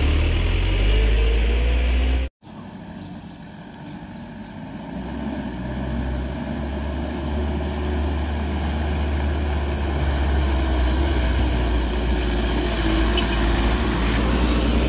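Diesel engines of light box trucks running steadily under load on a steep grade. The first is loud as it passes close and is cut off abruptly about two seconds in. The second grows steadily louder as it approaches and passes close.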